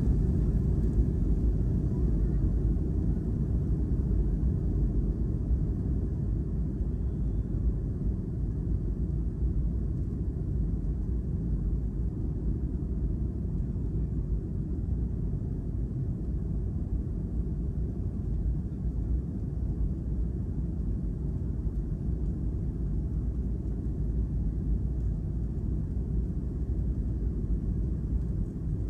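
Steady low rumble inside the cabin of a Boeing 757 as it taxis: engine drone and rolling noise, with no sharp events, easing slightly in loudness partway through.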